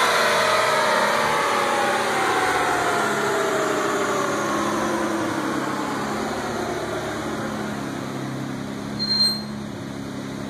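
Twin-turbocharged Nissan 350Z's 3.5-litre V6 winding down after a hard pull: its pitch falls steadily for several seconds, then settles into a steady idle. A brief high-pitched chirp comes near the end.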